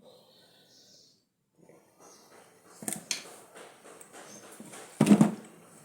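Drill parts being handled and fitted by hand: light rustling, then a few sharp clicks about three seconds in, and a louder knock of parts just after five seconds.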